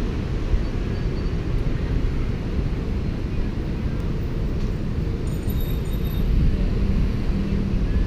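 City street traffic noise: a steady low rumble of cars and scooters.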